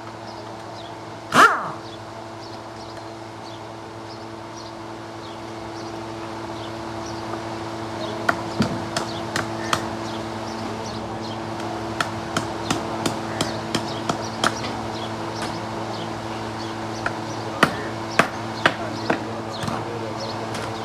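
A steady low hum throughout, with one loud short animal call about a second in. From about eight seconds on come many irregular sharp clicks and taps, in scattered runs.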